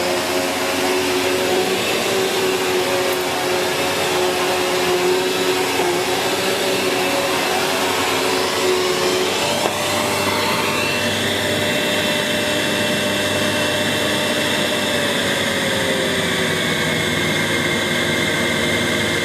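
Sanyo SCA-7AX upright bagged vacuum cleaner running steadily on maximum power, its motor giving a continuous whine. About halfway through the tone shifts and a higher whine comes in.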